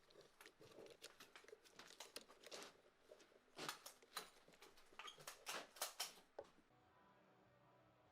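Faint, irregular light clicks and taps, some in quick clusters, stopping about six and a half seconds in.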